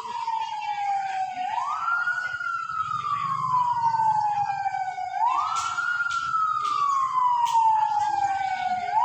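A siren-like wailing tone that climbs quickly and then sinks slowly, repeating about every three and a half seconds. A few sharp clicks come in the middle of the stretch.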